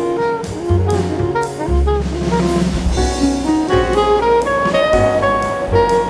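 Instrumental background music: a melody line over low bass notes and drums.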